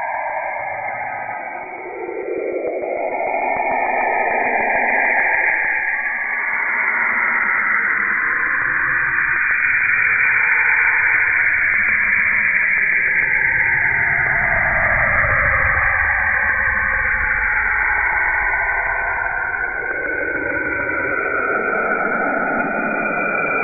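Saturn's auroral radio emissions, recorded by the Cassini spacecraft and shifted down into the range of hearing and sped up: a steady radio-like hiss in which several bands glide slowly up and down in pitch, some falling and then rising again.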